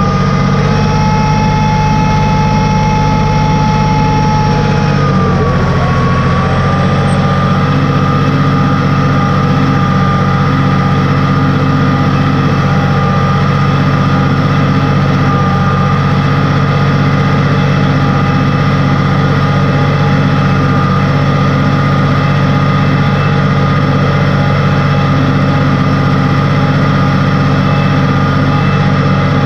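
Farm tractor engine running steadily under load as it pulls a three-point mounted moldboard plow through the soil. Its note dips a little about five seconds in, then holds steady.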